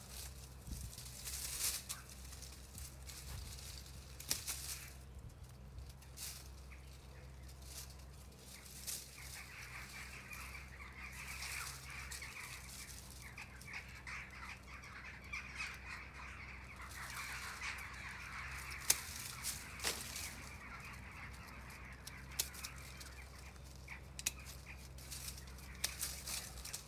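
Pruning shears snipping twigs off a European beech, with sharp scattered clicks, amid the rustle of its dry, dead winter leaves as the branches are handled.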